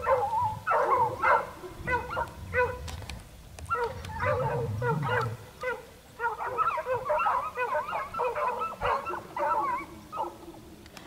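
A pack of hare-hunting scent hounds giving tongue: many overlapping baying cries, with a short lull about halfway through. The hounds are in cry on a hare's line.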